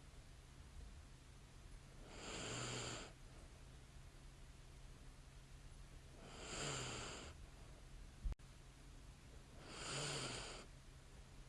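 A woman breathing in sleep with light snoring: three slow breaths about four seconds apart, each starting with a brief low snore. A single sharp click comes between the second and third breath.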